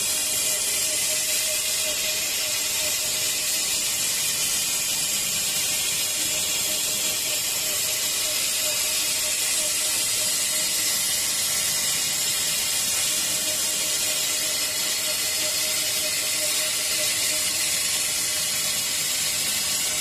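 Single-shaft nonwoven fabric roll cutting machine running steadily: an even, high hiss with a faint steady whine underneath.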